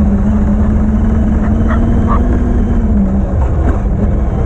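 Traxxas X-Maxx electric RC monster truck's brushless motor whining steadily as it drives fast over grass, heard from a GoPro on its back over a heavy rumble of wheels, chassis and wind; the whine drops slightly a little past three seconds in. A dog gives a couple of short yelps around two seconds in.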